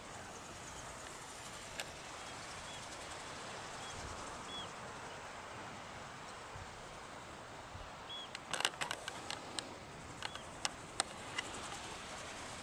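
Seabird cliff ambience: a steady hiss with short, high, arched bird calls every second or so. A run of sharp clicks and ticks comes about two-thirds of the way in.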